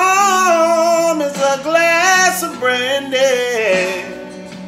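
A man singing a slow, soulful melody with long, bending held notes over guitar accompaniment; the voice trails off near the end.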